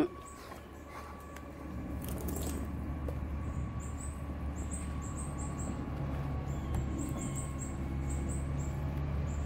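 Birds chirping outdoors: many short, high-pitched chirps in quick runs that start about three and a half seconds in, over a low, steady rumble that swells about two seconds in.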